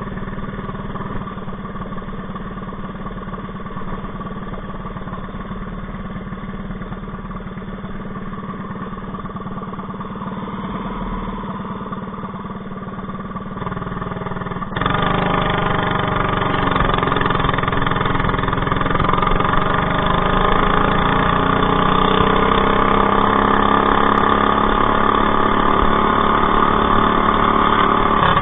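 Predator 212 single-cylinder four-stroke engine on a mini bike, its governor bypassed with a zip tie on the governor spring. It runs steadily, then about halfway through it gets louder and its pitch climbs slowly as the throttle is held open.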